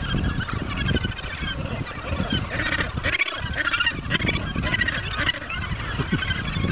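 A crowded Australasian gannet nesting colony calling, with many harsh, overlapping honking calls at once, over a low rumble of wind on the microphone.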